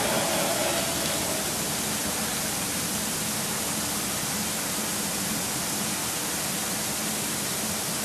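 Two-stroke fuel mix (petrol with oil) pouring steadily from a jerry can through a plastic funnel into a rock drill's fuel tank, a continuous splashing trickle.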